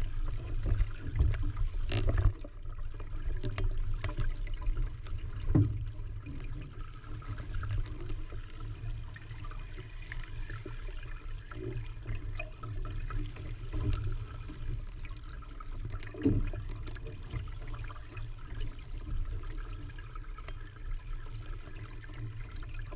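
Water rushing and slapping against a Supernova sailing dinghy's hull as it sails through chop, with wind rumbling on the microphone. Now and then there is a sharper thump, about two, six and sixteen seconds in.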